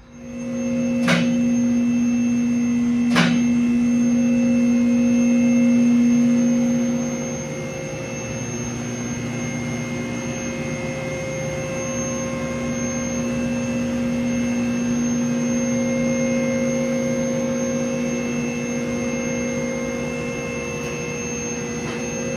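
Steady machine hum holding a few fixed pitches, with two sharp clicks in the first few seconds.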